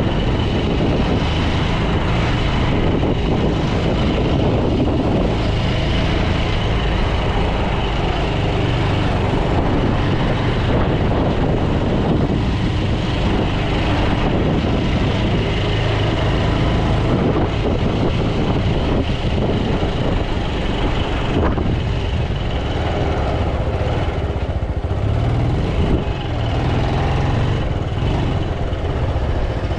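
Bajaj Pulsar 200 motorcycle being ridden in traffic: its single-cylinder engine running steadily under way, mixed with continuous road noise.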